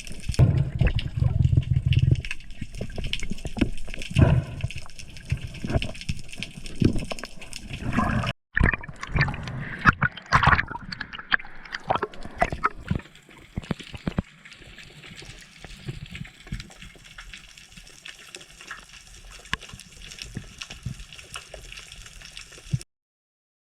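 Water sloshing and gurgling around the camera, with many small clicks and knocks; the sound cuts out for a moment about eight seconds in and is quieter in the second half.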